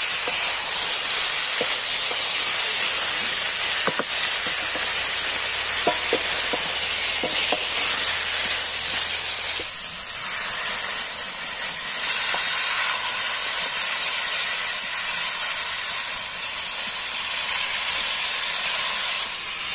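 Spiced potatoes and gourd frying in a steel wok with a steady sizzle, scattered clicks from a wooden spatula stirring against the pan. About ten seconds in, water is poured in and the sizzle gives way to a steamy hiss as the curry starts to boil.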